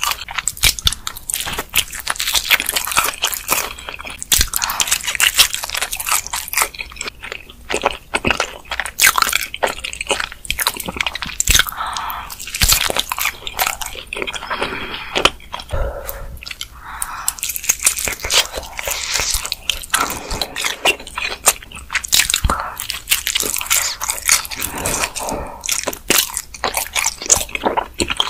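Close-miked chewing and biting of pizza: a steady stream of crackly, wet mouth clicks and crunches from the crust, with a fresh bite into a slice near the end.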